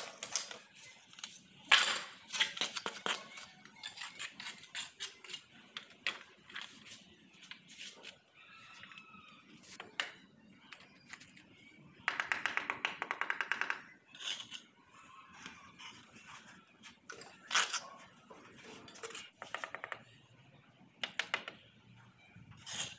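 Ceramic wall tiles being handled and tapped into place with a mallet: scattered sharp clicks and knocks, with a fast run of light taps lasting about two seconds around halfway through.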